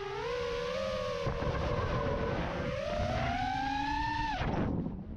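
FPV quadcopter's brushless motors whining, the pitch wandering with the throttle, then climbing over a second or so before cutting off sharply near the end as the throttle is chopped, leaving a rush of air.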